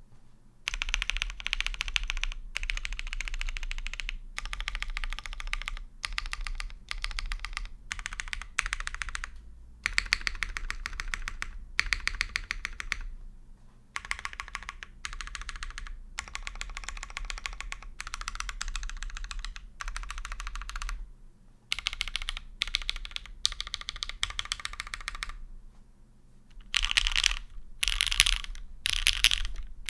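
Continuous typing on a custom mechanical keyboard with lubed, polished Hyperglide Cherry MX Black linear switches and GMK keycaps. It comes in long runs of rapid keystrokes broken by short pauses, with a faster, louder run near the end.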